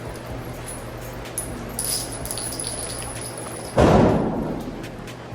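A single loud gunshot about three-quarters of the way through, sudden and echoing as it dies away over a second or so.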